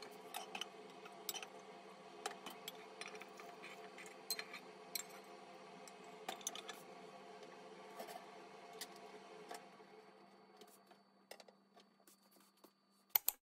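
A thin film of oil heating in a non-stick frying pan on a gas burner: a faint steady hum with scattered light ticks and crackles, and two sharp clicks near the end.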